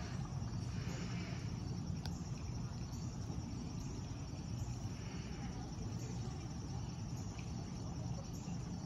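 Insects chirping steadily in a high, evenly pulsing drone, over a low steady rumble of outdoor background noise.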